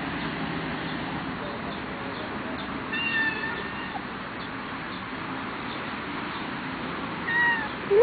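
Two short, faint, high-pitched kitten meows, one about three seconds in and one near the end, over a steady background hiss.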